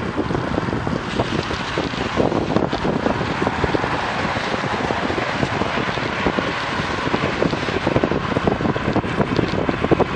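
Wind buffeting the action camera's microphone on a moving bicycle, a steady rushing noise with rapid low gusty thumps as the bike gets up to about 30 km/h.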